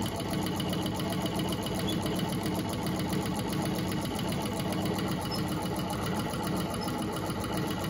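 Antique Gritzner treadle sewing machine running steadily, its needle stitching through a cloth rag with a fast, even mechanical clatter. It runs smoothly and quietly on its new belt after a little WD-40.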